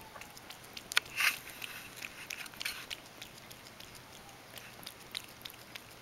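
A cat licking and nibbling at a soft sponge cake held in a hand, making small irregular wet mouth clicks and smacks. The loudest of them come about a second in.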